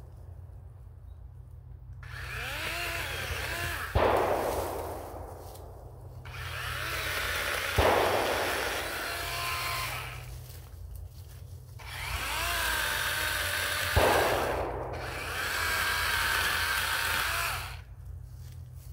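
DeWalt 20V XR battery chainsaw run three times, its electric motor whining up in pitch and then cutting wood for a few seconds each time. There is a sharp crack during each run.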